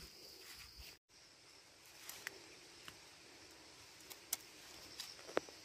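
Sickle cutting grass stems close to the ground: a few faint, sharp snicks scattered over several seconds, the loudest near the end.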